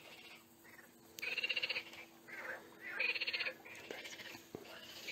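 Frogs calling: bursts of rapid rasping croaks, each about half a second long, repeating every second or two.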